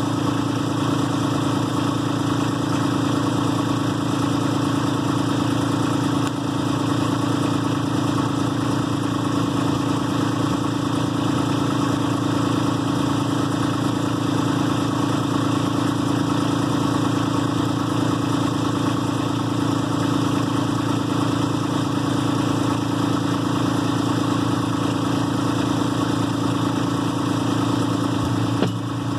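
Kubota B2650 compact tractor's three-cylinder diesel engine idling steadily.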